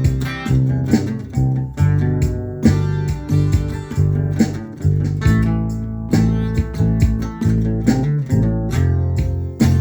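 Guitar being played: plucked notes and chords in a steady rhythm, each attack ringing and fading, with strong low bass notes underneath.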